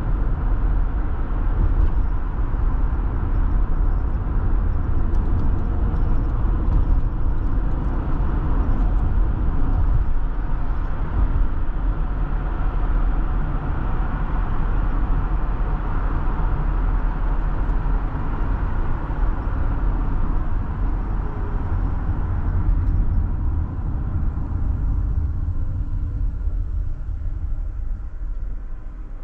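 Road noise of a car driving at steady speed, a low rumble of tyres and engine heard from inside the car, easing off near the end as the car slows.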